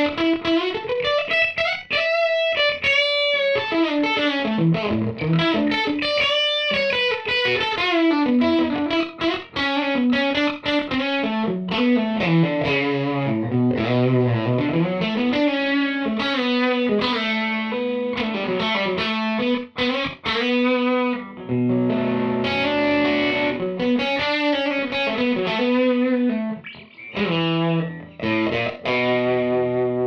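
Suhr Classic Pro electric guitar played with an overdriven tone through a Line 6 POD HD500 modeller: fast single-note lead runs climbing and falling, with a few held notes and chords in the second half.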